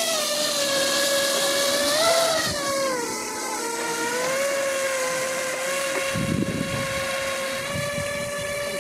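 Twin electric propellers of a small radio-controlled rescue boat running under power: a steady high whine that dips in pitch about three seconds in, then holds level.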